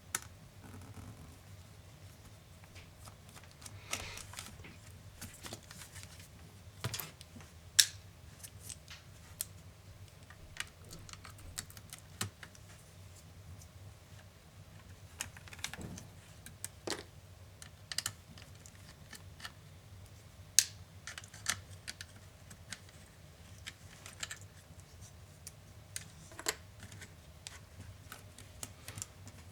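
Irregular small clicks and taps of plastic and metal laptop parts being handled and worked with small tools as the laptop is taken apart, with a couple of sharper knocks.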